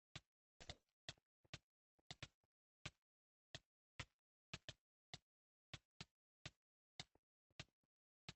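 A run of short, sharp taps, about two a second at an uneven pace, with dead silence between them.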